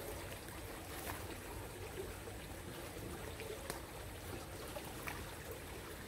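Shallow creek water trickling steadily over rocks, with a few faint clicks, about three, as stones or gear are handled.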